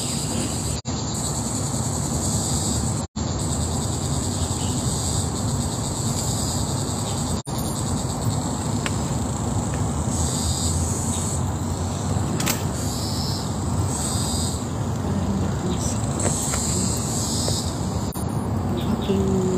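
Steady high-pitched chorus of insects over a continuous low rush. The sound cuts out for an instant three times.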